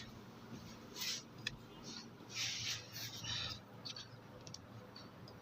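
Faint rustling and scraping of hands on clothing and the treatment table, in a few short bursts, with a couple of small clicks.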